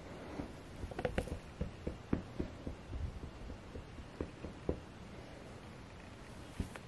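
Irregular soft taps and fabric rubbing from handling a Squishmallow plush, about a dozen light knocks in the first five seconds, then a pause and one more near the end.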